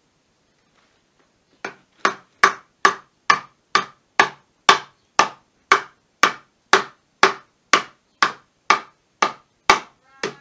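A hammer driving a nail into a timber joint of a wooden frame: a steady run of sharp blows, about two a second, starting about a second and a half in.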